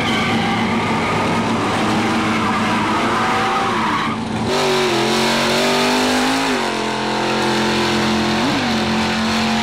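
Modified Bricklin sports car doing a burnout: the engine runs at high revs while the rear tyres spin and squeal. About four seconds in, the sound cuts to a car engine running steadily, its revs rising and falling twice.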